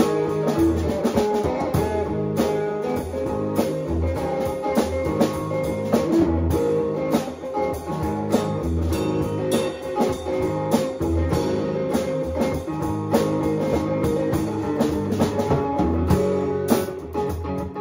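A band rehearsing a song live, with a drum kit and guitar playing together.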